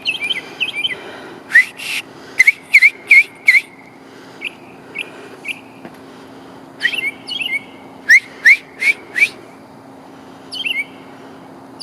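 Northern mockingbird singing at night: loud, sharp upslurred whistled notes, each phrase repeated several times in quick series with short pauses between series. A steady low hum runs underneath.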